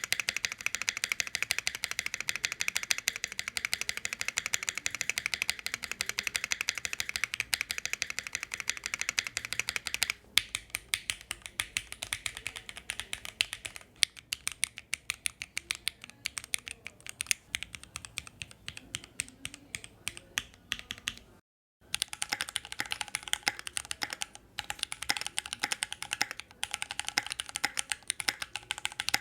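Fast, continuous typing on a Keychron Q1 aluminium gasket-mount mechanical keyboard with linear switches, a dense run of key clicks. There are brief pauses about ten and fourteen seconds in, and a short gap of silence about twenty-one seconds in, after which the keystrokes ring a little more.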